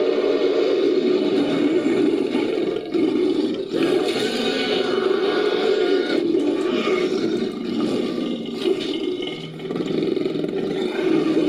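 Sound-designed creature sound effect for a fictional pterosaur, layered from monster and animal recordings: a continuous rough, roaring noise, with short pitched calls over it partway through and brief dips in level.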